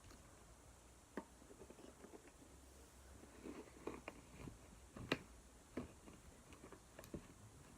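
Faint handling noises: scattered small clicks and taps with some soft rustling, the sharpest click about five seconds in.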